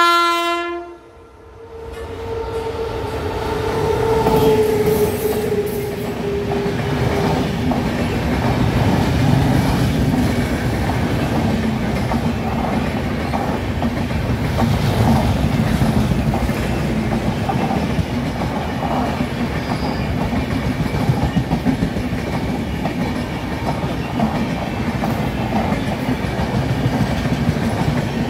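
A WAP7 electric locomotive ends a horn blast right at the start, then passes with a tone that falls in pitch over a few seconds. The LHB passenger coaches follow, rumbling past steadily with the clickety-clack of wheels over the rail joints.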